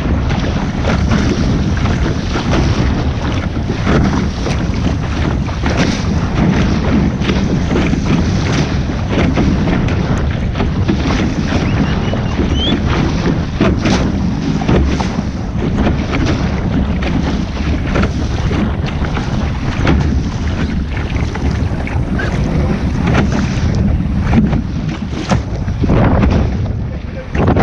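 Wind buffeting the microphone on a sailing boat, a heavy, continuous rumble broken by frequent sharp gusts and knocks, over water rushing and splashing.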